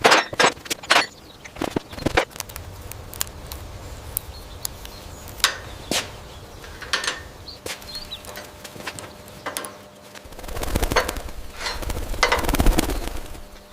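Irregular sharp knocks and clicks over a low steady hum. Near the end a louder rushing noise swells up, with more knocks in it.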